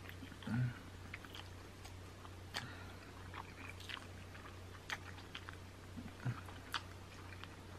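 Close-miked eating sounds of a person gnawing and chewing meat off a buffalo chicken wing bone: scattered small wet clicks, smacks and tearing crackles over a faint steady low hum.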